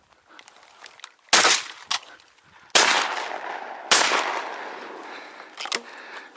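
Three shotgun shots a little over a second apart, the last two followed by a long fading echo.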